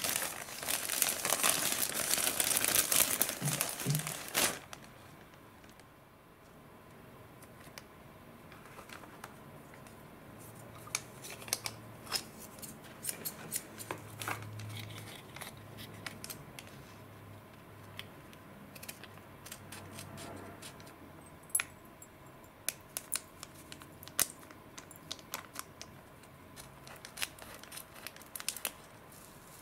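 A thin white paper sheet crumpled and crinkled by hand for about the first four seconds. After that, quieter scattered clicks and light rustles of foil and paper sachets and scissors being handled, with scissors snipping open a paper powder sachet near the end.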